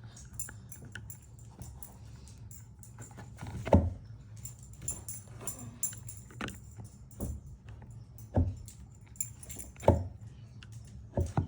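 A metal tool being worked into the wheel hub of a plastic wheeled garbage cart to release the wheel, making scattered clinks and knocks. The loudest knocks come a little under four seconds in and about ten seconds in, over a steady low hum.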